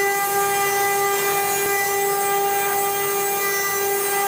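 Spindle of a CNC stone router cutting 20 mm stone with a water-cooled router bit: a steady high-pitched whine over a rough grinding hiss.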